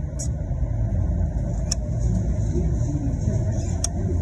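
A car's fuel filler cap being screwed on, with two sharp clicks, about a second and a half in and again near the end, over a steady low rumble.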